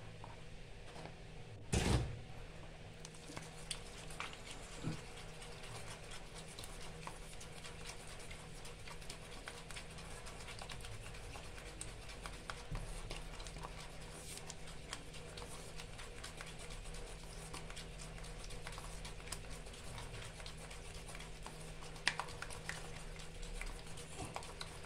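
Plaster of Paris and water being spatulated by hand in a plaster bowl: a steady run of faint scraping and clicking strokes, with one louder knock about two seconds in.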